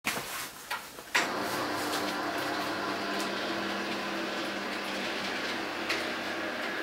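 A small electric motor, such as a hairdresser's clipper or dryer, switched on with a click about a second in, then running steadily with an even hum and hiss. A few lighter clicks come before it starts.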